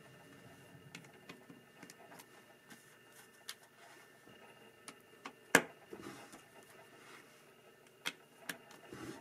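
Plastic Lego bricks clicking and tapping as they are handled and pressed onto the build: scattered light clicks, one sharper click a little past halfway, and a few more near the end.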